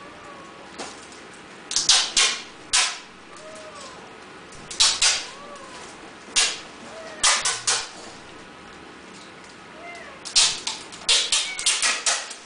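Tape being torn and pulled apart by a monkey: short, harsh ripping bursts in clusters of two or three, with quiet gaps between, and a longer flurry of rips near the end.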